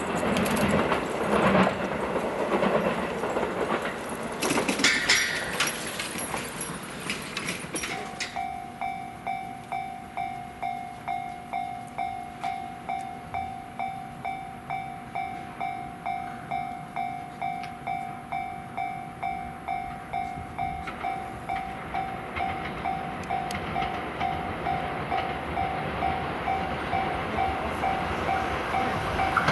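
A JR West 207 series electric commuter train runs along the rails for the first several seconds, rumbling with wheel clicks. Then a Japanese level crossing's electronic warning bell rings steadily, about one and a half dings a second, while the rumble of another approaching train slowly grows.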